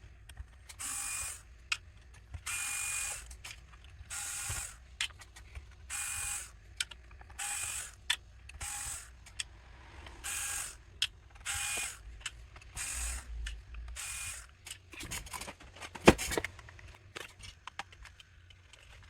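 A small electric screwdriver whirs in about ten short bursts, undoing the bottom-panel screws of an ASUS laptop. Near the end come a string of clicks and one sharp snap.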